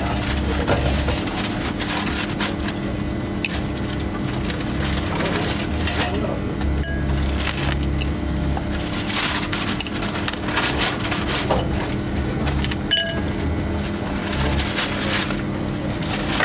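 Steady machine hum in a sandwich shop, with scattered clicks and rustles of food being handled and laid on a cutting board.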